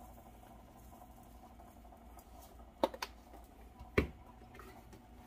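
Plastic seasoning shaker being put away after sprinkling: quiet at first, then two sharp clicks close together a little under three seconds in, and a heavier knock about four seconds in as the bottle is set down on the counter.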